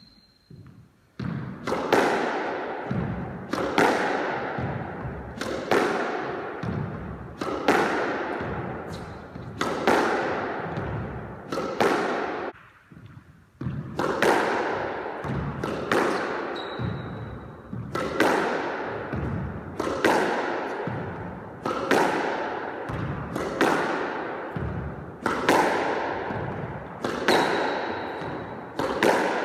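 Squash ball struck again and again with a racket and smacking off the court walls, about once a second with a short pause about halfway through. Each hit echoes in the enclosed court. Brief shoe squeaks on the court floor come a few times.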